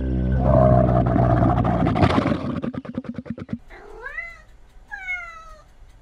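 A loud, low, drawn-out alpaca call that breaks into a rapid even pulsing from about two seconds in. Then a Scottish Fold cat meows twice: the first meow rises in pitch, the second falls.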